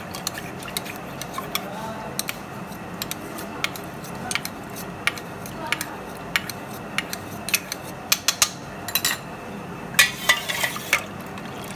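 Steel ladle stirring milk in a steel bowl, clinking repeatedly against the bowl, to break up clumps of soaked sweet basil seeds. The clinks come thicker near the end.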